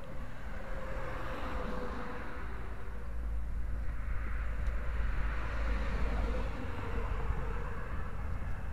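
Steady outdoor street noise: road traffic with a low rumble underneath and a faint wavering engine tone, with no distinct single event.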